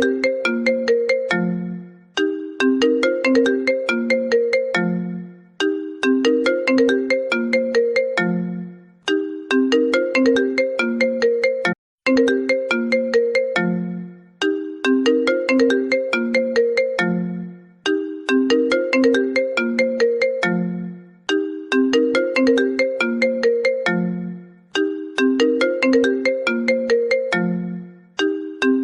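Phone ringtone: a short melody of quick notes that repeats about every three and a half seconds, each time ending on a long low note.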